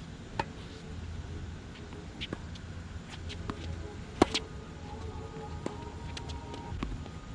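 Tennis balls struck by rackets and bouncing on a hard court during a rally: sharp single pops about a second or two apart, the loudest about four seconds in. Faint background music with held tones runs underneath.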